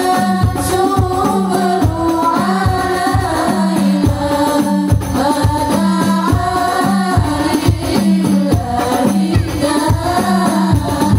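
Women's group singing an Islamic devotional song (sholawat) together into microphones, with rebana frame drums beating a steady rhythm of about three strokes a second, amplified through a PA.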